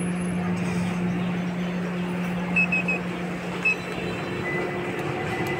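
Outdoor traffic and engine noise: a steady low engine hum over a background rumble, with three quick high beeps about two and a half seconds in and one more a second later.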